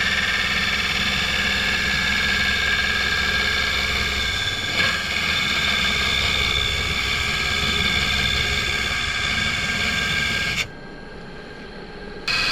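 Wood lathe running while a turning tool cuts the thin wall of a poplar lampshade: a steady scraping hiss with a high whine. There is a brief louder moment about five seconds in, and near the end the cutting stops for about a second and a half before it resumes.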